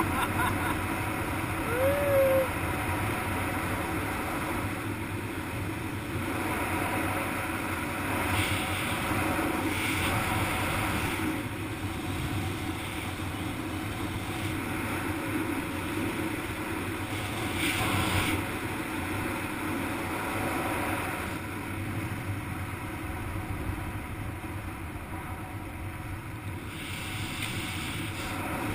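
Steady wind rushing over a helmet-mounted camera's microphone while flying under an open parachute canopy, swelling and easing a little as the canopy moves.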